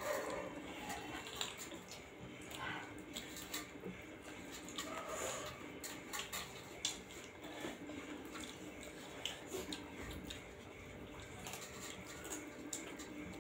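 Close-up eating sounds of rice and curry eaten by hand: wet chewing and lip smacking, with many small sharp clicks as fingers work the food on steel plates.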